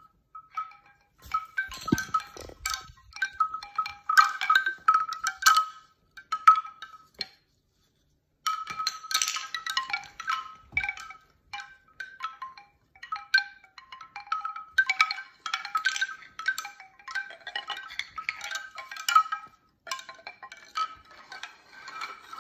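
Bamboo wind chime, its hollow bamboo tubes knocking together in quick, irregular clatters of short pitched wooden clacks as it is handled. The clatter breaks off for about a second partway through.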